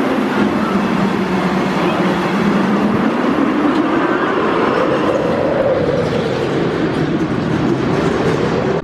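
Steel looping roller coaster's train with PTC (Philadelphia Toboggan Company) cars running along the track: a steady rumble of wheels on steel rail. Its pitch sinks, then rises about halfway through as the train speeds down the drop.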